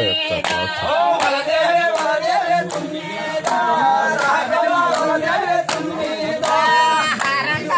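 A group of people singing together, with steady hand claps about twice a second keeping time for a circle dance.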